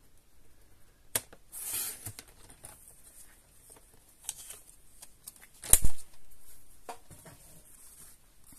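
Paper trimmer's sliding blade cutting a strip of cardstock with a short scraping swish, among light clicks and knocks of craft tools handled on a table; the loudest sound is a dull thump about two-thirds of the way through.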